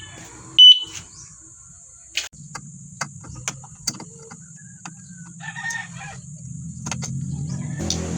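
A single loud beep from the e-bike's turn-signal beeper about a second in, the last of a series, followed by scattered clicks. From about two seconds in a low engine hum starts and grows louder toward the end, with a rooster crowing briefly near the middle.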